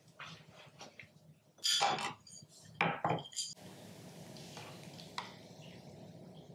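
Ceramic tableware being handled on a wooden table: a small rice bowl knocks down onto the planks and chopsticks clink against the bowls, with a few sharp clinks about two and three seconds in, some ringing briefly. After that only faint clatter remains.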